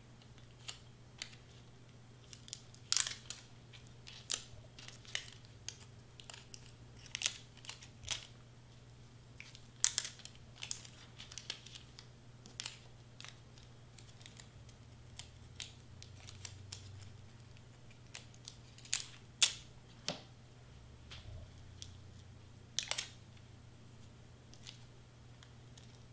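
Irregular small crinkles and clicks of glue dots being peeled off their backing and clear plastic packaging being handled.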